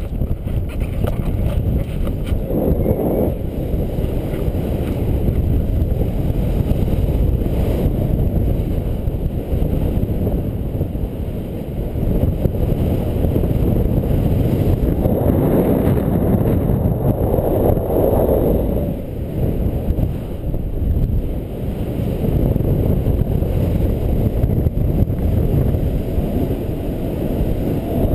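Wind from the airflow of a paraglider in flight buffeting the camera's microphone: a loud, steady low rumble that swells a few times, most strongly about halfway through.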